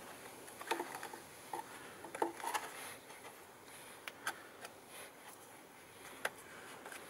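Faint scattered ticks and rustles of fingers pressing calendula seeds into compost in a cut-down plastic milk carton, with a few sharper clicks around two seconds in and again near the end.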